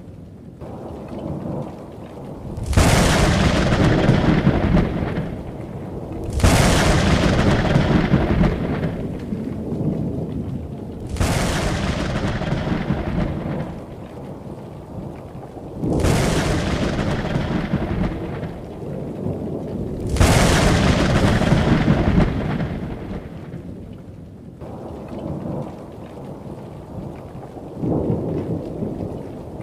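Thunderstorm: five loud claps of thunder a few seconds apart, each starting suddenly and fading over two to three seconds, and a weaker one near the end, with rain hissing in between.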